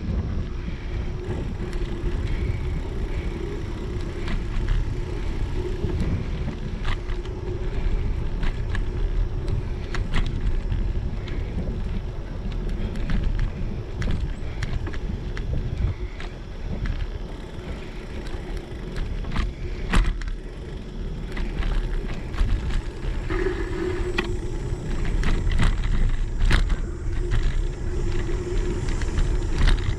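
Wind rumbling on a bicycle-mounted action camera's microphone, mixed with the steady rolling noise of the bike's tyres on pavement. Scattered sharp clicks and knocks from bumps run through it, the loudest about two-thirds of the way in.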